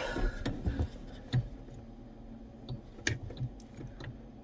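Scattered light metallic clicks and taps of pliers against the tractor's clutch pedal linkage and spring while hooking on a stiff clutch return spring. One sharper tap comes about a second and a half in, and a few more come close together around three seconds in.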